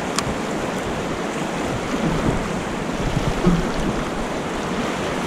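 Fast river water rushing steadily through a riffle, with one short faint click just after the start.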